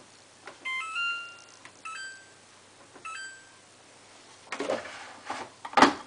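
Samsung WF8804RPA washing machine's control panel beeping as buttons are pressed: three electronic chimes about a second apart, the first a short rising run of notes. Then the plastic detergent drawer is pulled open with a rattle, ending in a sharp knock.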